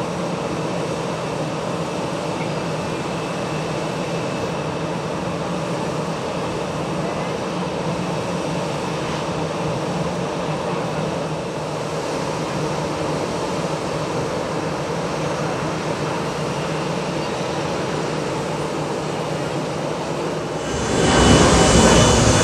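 Airbus A319neo's jet engines on approach to land, a steady rushing hum with faint steady tones, growing sharply louder near the end.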